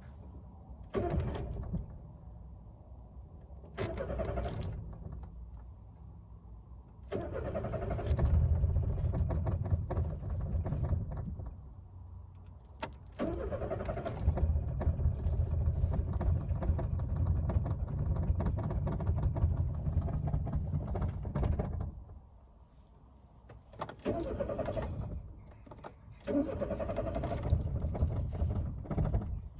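Peugeot 205's warm 1.0-litre carburetted petrol engine being cranked on the starter with full choke, in repeated attempts: two short cranks, then two longer spells of several seconds where it turns over with a heavier low rumble, then two more short cranks near the end. It is a warm start on full choke, which tends to flood the engine.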